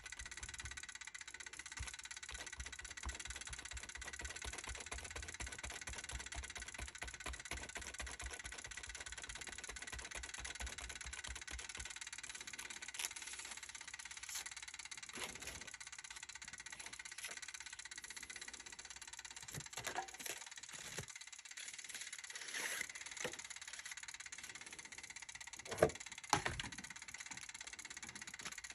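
Handheld ink applicator dabbed and rubbed rapidly over a paper stencil, a fast soft rhythmic patter that stops after about twelve seconds. Then craft tools are handled and set down on the table, with a few scattered knocks, two louder ones near the end.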